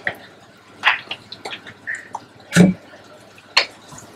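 Wooden spatula stirring tomato masala in a nonstick pot, with a few separate knocks and scrapes against the pot, the loudest a heavier knock about two and a half seconds in.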